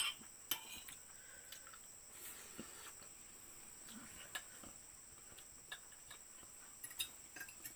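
Steady high-pitched insect chorus, with a few sharp clicks on top, the loudest right at the start and another pair about seven seconds in.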